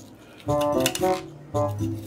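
Background music: a light instrumental tune of short melodic notes, resuming after a brief pause about half a second in.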